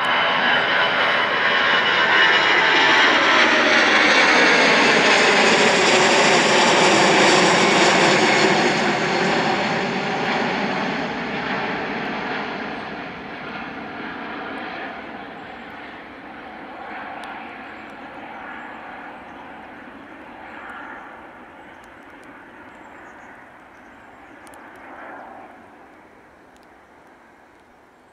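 Four-engined Airbus A340-300 at takeoff power, its CFM56 jet engines passing close overhead as it climbs out. The noise is loudest a few seconds in, with tones sweeping in pitch as it passes, then fades slowly as it climbs away.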